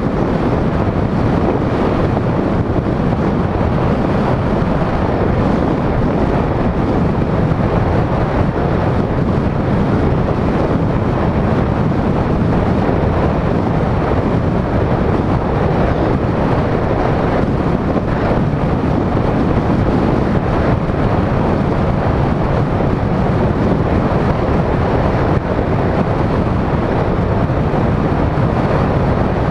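Steady rush of wind on the microphone of a camera on a moving car, mixed with tyre and road noise.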